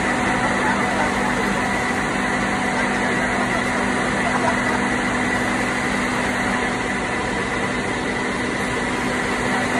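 Steady drone of running factory machinery: dense, unchanging noise with a low hum and a higher whine held constant throughout.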